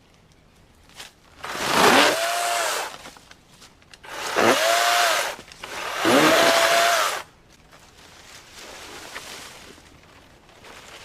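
Battery-powered electric chainsaw cutting into a dead tree trunk in three bursts. Each time the motor's whine rises and then holds a steady pitch before the trigger is released. A quieter stretch of running follows near the end.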